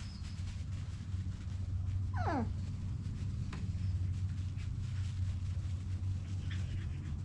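An Alaskan Klee Kai puppy gives one short yelp that falls steeply in pitch, about two seconds in, over a steady low hum.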